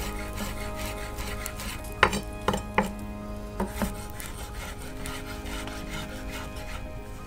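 Chef's knife chopping fresh parsley on a wooden cutting board: a quick run of light knocks of the blade through the herbs onto the wood, with a few louder strikes between about two and four seconds in.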